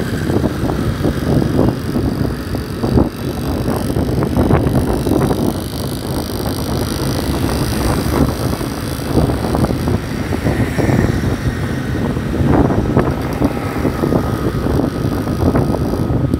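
Wind buffeting a helmet-mounted phone's microphone on a moving motorcycle, with the motorcycle's engine and the surrounding traffic underneath.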